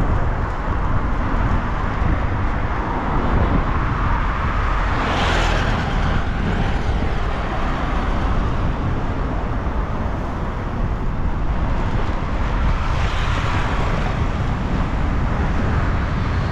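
Road traffic heard from a moving bicycle: a steady low rumble and hiss of cars, with one vehicle passing about five seconds in and another around thirteen seconds.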